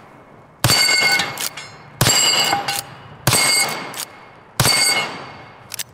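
Four .357 Magnum shots from a muzzle-braked Rossi R92 lever-action rifle, about 1.3 seconds apart, each with a short metallic ring from steel Texas Star plates being hit and a smaller clack shortly after.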